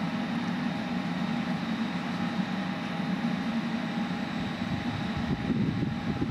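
Diesel engine of a class 628 diesel multiple unit running as the railcar approaches, a steady low drone with a faint high whine above it. Low wind rumble on the microphone grows near the end.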